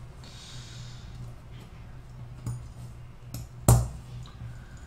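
Small metal model-locomotive parts being handled on a workbench: a few light clicks, then one sharp click or knock just under four seconds in, over a low steady hum.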